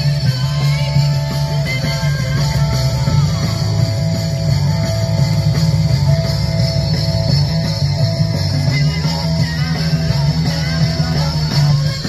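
Rock music with a steady beat.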